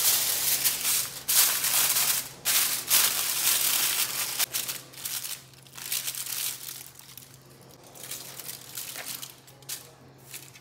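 Aluminium foil crinkling and crumpling as it is wrapped and pressed around a pork-stuffed pineapple, densest in the first few seconds, then lighter, separate rustles as the wrapped package is handled.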